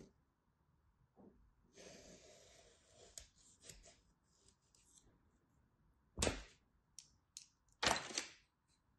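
Utility knife slicing through packed kinetic sand with a soft grainy hiss and a few light clicks, then two louder dull thuds, about six and eight seconds in, as cut slabs of sand fall over.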